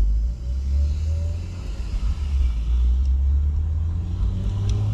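Low, fluctuating rumble inside an open-top convertible on the move: wind on the microphone mixed with road and engine noise.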